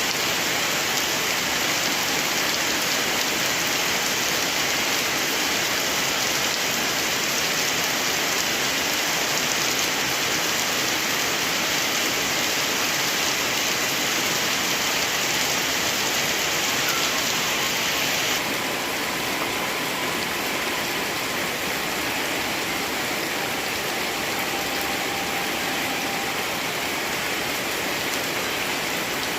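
Heavy rain falling steadily, a dense even hiss. About two-thirds of the way through, the hiss suddenly becomes a little softer and duller.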